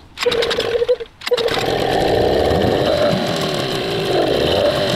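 Brand-new Gladiator 9.8 two-stroke outboard motor being pull-started: one quick cranking pull on the recoil starter, then it catches about a second and a half in and runs steadily. It starts at last after being flooded, as the owner supposes.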